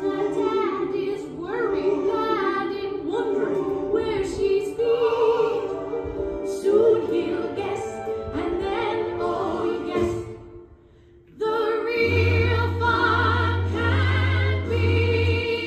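Recorded musical-theatre song playing: voices singing over an accompaniment. About two-thirds of the way through it dies away almost to nothing for a moment, then comes back with a strong bass line under the voices.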